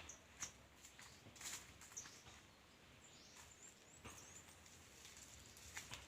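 Faint scattered rustling and light snapping of dry plants being handled during the harvest, with a few short high bird chirps.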